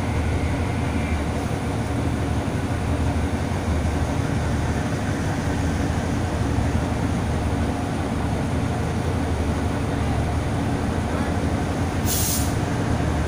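Caterpillar-engined Alsthom diesel-electric locomotive pulling slowly away, its diesel engine running with a steady low rumble. There is a short hiss about twelve seconds in.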